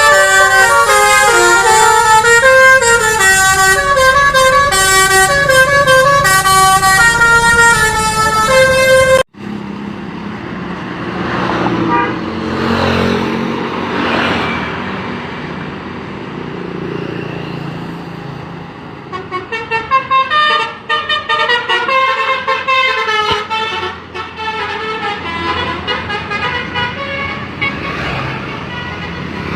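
Tour bus multi-tone 'telolet' musical horn (Basuri v3) playing a loud melody of stepped notes, cutting off abruptly about nine seconds in. Then vehicle noise rising and falling as a bus passes, and from about twenty seconds in the horn melody sounds again, at first in short choppy bursts.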